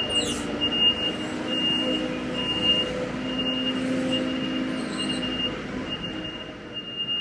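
Harvest machinery engine running steadily, with a high electronic beep repeating about every two-thirds of a second.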